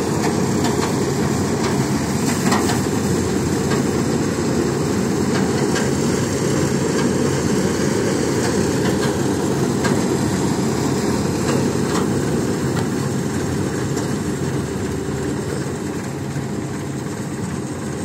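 Preet combine harvester running steadily while its unloading auger discharges paddy grain, a dense, even machine noise that eases slightly near the end.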